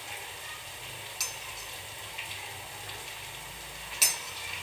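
Onion pakodas of gram-flour batter sizzling steadily as they deep-fry in oil, cooking toward light brown. Two short clinks sound, about a second in and near the end.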